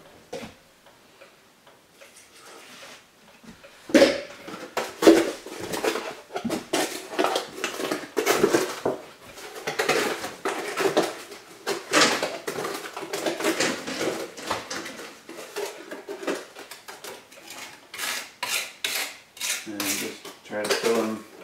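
Wet Quikrete mortar mix being stirred in a cut-off plastic milk jug with a hand tool, re-mixing after more water has been added to a mix that was too dry. The tool scrapes and knocks against the jug in quick, irregular strokes, starting about four seconds in.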